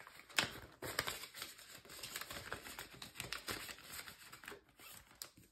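Crinkling rustle of Canadian polymer banknotes and a cash envelope being handled as a $50 is tucked into the envelope, with many small irregular clicks.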